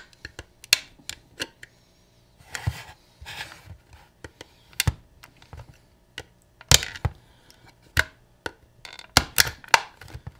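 Plastic latch tabs of a Seagate Backup external hard drive enclosure clicking and snapping as a pry tool works them loose, with a short stretch of plastic scraping a few seconds in. The clicks are sharp and come at irregular intervals, some close together.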